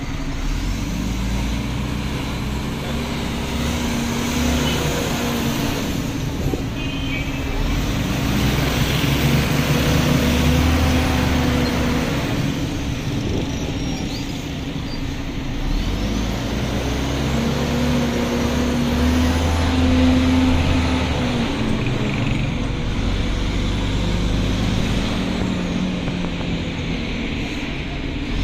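Bus engine running while driving through city traffic, its pitch rising and falling as it speeds up and slows, over steady road noise.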